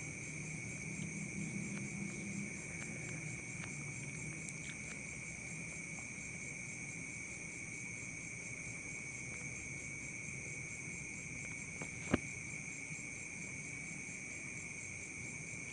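Steady high-pitched insect trilling in the background, with one sharp click about twelve seconds in.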